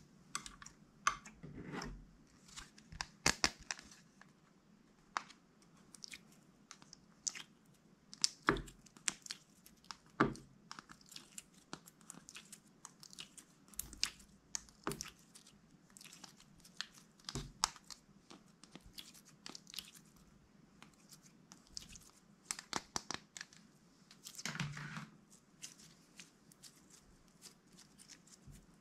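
Hands squishing, stretching and folding slime, making irregular sticky pops, clicks and crackles, with a few louder snaps along the way.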